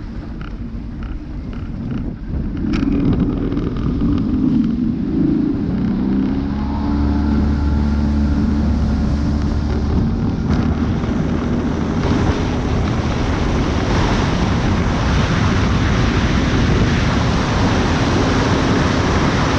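An engine speeding up, its hum rising in pitch over the first several seconds, then buried under heavy wind rushing over the microphone.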